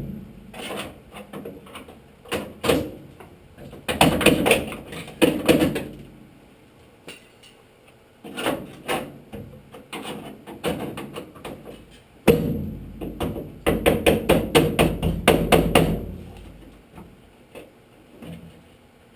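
Rapid hammering in bursts of many quick blows, several a second, with short pauses between the bursts.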